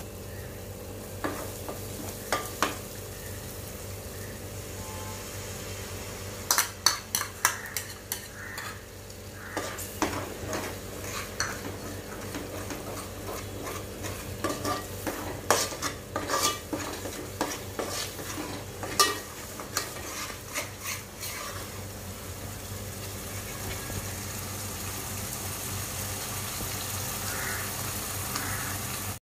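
A spoon stirring and scraping thick curry masala in a hammered metal pot, with sharp clinks against the pot from about six to twenty-one seconds in, over a steady sizzle of the masala frying.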